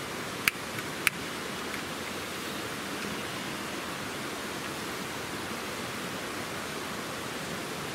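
Steady rush of flowing water, with two sharp knocks about half a second and a second in as split kindling is put into a small steel wood-burning firebox stove.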